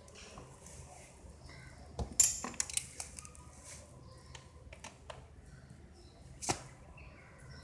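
Scattered metallic clinks and knocks of hand tools and metal parts being handled, the loudest about two seconds in and again about six and a half seconds in. No engine is running.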